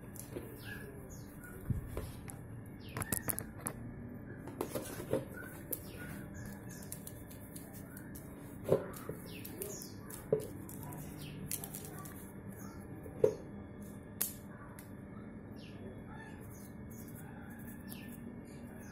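Scattered clicks and knocks of a bicycle rear derailleur and small metal parts being handled and wiped during cleaning, with a few sharper clicks standing out. Birds chirp repeatedly in the background.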